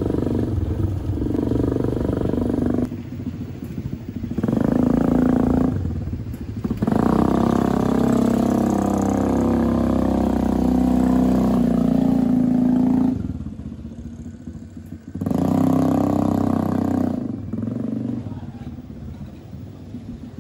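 Homemade buggy's 110cc gasoline engine running as it drives, its pitch rising and falling with the throttle, with a few sudden breaks where the sound drops away for a second or two.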